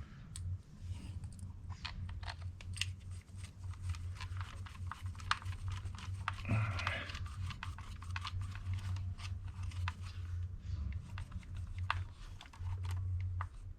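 Small irregular clicks and scrapes of a screw and washer being fitted and tightened by hand into the plastic chassis of an RC car, with a brief scrape about halfway through, over a steady low hum.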